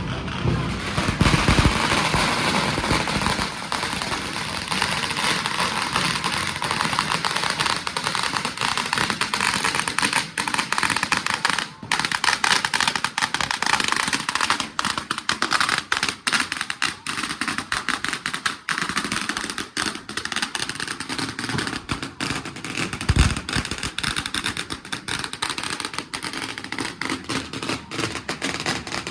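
Firecrackers going off in a dense, continuous rattle of rapid sharp cracks, with one deeper, louder bang about two-thirds of the way through.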